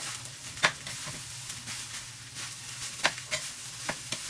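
Garlic fried rice frying in a pan while it is stirred and tossed with a metal spatula, the spatula clinking sharply against the pan about half a second in and three times near the end.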